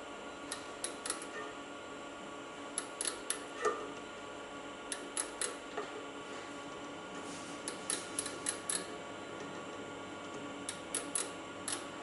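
Ratchet thimble of a three-point internal micrometer clicking in short runs of three to five clicks, five times, as it is turned to seat in the bore of a motor bearing housing, over a steady hum.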